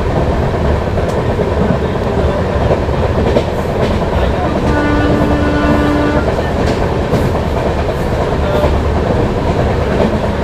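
Express passenger train running at speed, its wheels clattering over the rail joints, with a single steady horn blast of about a second and a half midway.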